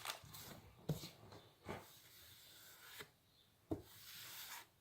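Faint rubbing and scraping from hands handling things, with a few short, light knocks about one, two and nearly four seconds in.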